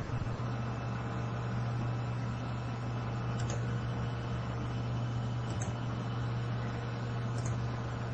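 Steady low electrical hum with background hiss, and three faint mouse clicks about two seconds apart.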